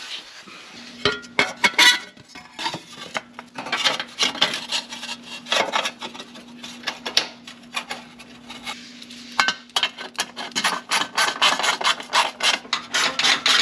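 Gloved hand working an oxygen sensor in its threaded bung on the exhaust X-pipe: rubbing and scraping with many short clicks, which come quicker and closer together in the last few seconds, over a faint steady low hum.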